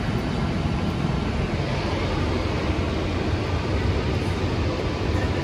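Steady in-flight cabin noise of a Cessna Citation Latitude business jet: an even, low rush of airflow and its twin turbofan engines.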